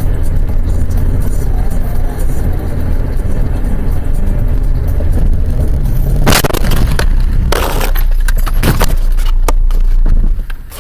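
Car cabin noise from a dashcam, a steady low rumble of the moving car. About six seconds in comes a loud crash as the car collides with a van, followed by a few seconds of crunching and cracking impacts, with glass breaking. The sound drops away sharply near the end.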